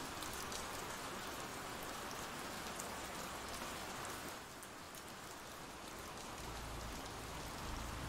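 Steady rain falling, a continuous rain ambience with no breaks.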